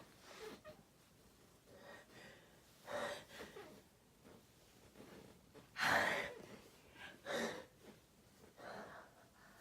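A person's sharp gasping breaths and sneezes, in four or so short bursts; the loudest comes about six seconds in.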